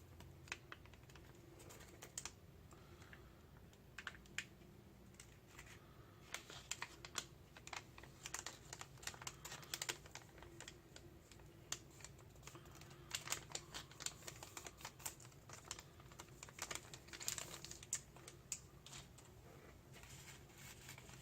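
Quiet, irregular small clicks and crackles from a self-heating meal kit as its flameless heater pad is wetted with the salt-water activator and starts to react.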